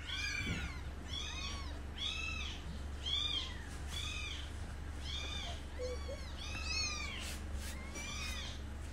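Newborn kitten mewing over and over, thin high-pitched cries that rise and fall, about one and a half a second, over a steady low hum.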